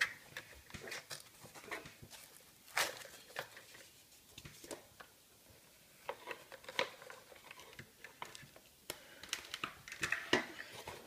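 Unpacking an LED ring light from its box: scattered clicks, light knocks and rustles of plastic parts, cables and foam packing being handled. The sharpest click comes about three seconds in, and the handling gets busier near the end.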